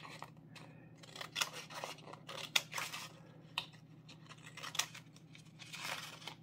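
Scissors snipping through a folded sheet of A4 paper, cutting along the fold line: a run of short, irregular snips as the blades close and open.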